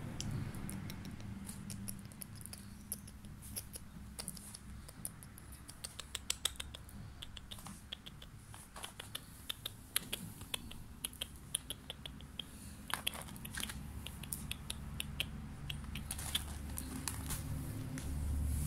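Kitten playing on a woven floor mat: irregular small clicks, ticks and scratches of its claws and paws, coming in quick clusters.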